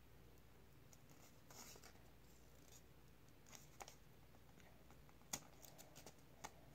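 Faint pen scratching on paper and the paper being handled, with a few small sharp clicks or crinkles, the loudest a little past five seconds in.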